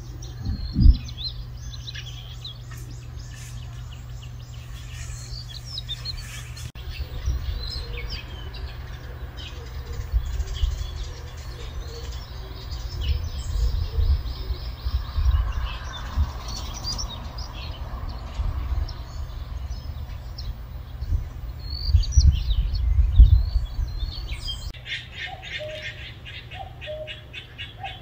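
Small birds chirping and calling outdoors, many short, scattered calls, over a low rumble on the microphone that swells a few times, loudest about three-quarters of the way through. Near the end a fast, even run of chirps takes over.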